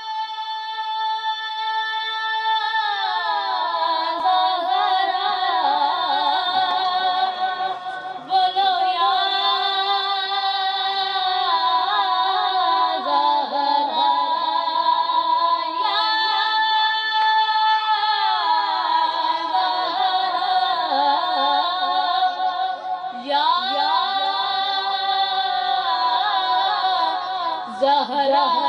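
A boy reciting a naat, an Urdu devotional song of praise, unaccompanied into a microphone: one melodic voice with long held notes and sliding ornaments between them.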